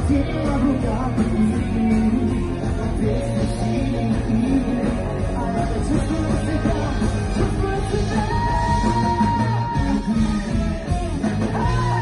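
A rock band playing live, with drums, guitars and keyboard under a singer. About eight seconds in the voice holds one long note.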